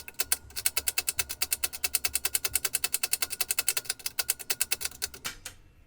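1968 Montgomery Ward Signature 510 typewriter typing, its keys striking in a rapid, even run of about ten clicks a second that stops a little after five seconds in.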